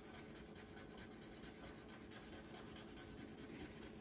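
Faint scratching of a felt-tip marker colouring in on paper.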